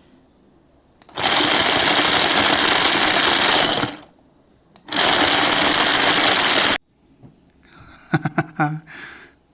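NGT bait chopper's motor run in two bursts of about three and two seconds, its blade spinning frozen tiger nuts round the bowl rather than chopping them. A few short knocks follow near the end.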